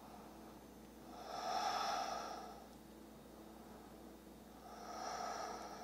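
A woman's audible breathing while holding a yoga balance pose: two slow breaths, the first about a second in and lasting about a second and a half, the second starting near the end.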